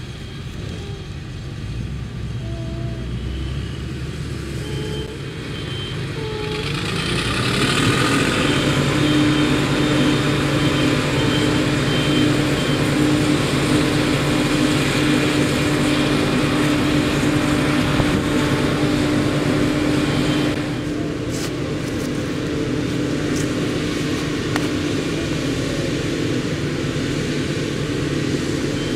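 Claas Jaguar self-propelled forage harvester chopping maize, running alongside a tractor pulling a silage trailer. The engines and chopping noise grow much louder about seven seconds in as the machines approach, then hold steady, easing slightly near the end.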